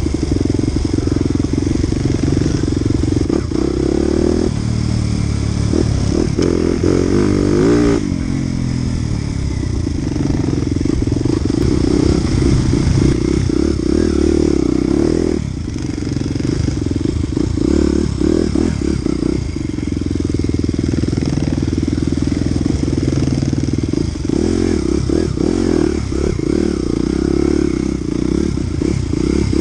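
Off-road dirt bike engine running under load on a rough trail. The revs climb from about five to eight seconds in, then drop, with short throttle-offs a little past the middle and again later.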